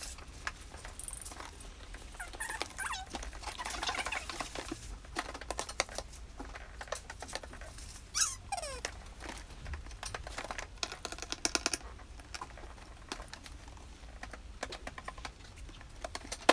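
Cardboard box being handled and turned over by hand: scattered rubbing, scraping and tapping on the cardboard. A short falling squeak comes about eight seconds in, and a quick run of rapid clicks a few seconds later.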